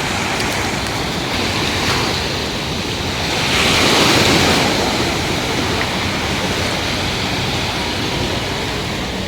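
Mediterranean sea waves washing onto the shore in a steady rush, with one wave breaking louder about four seconds in. Wind buffets the microphone.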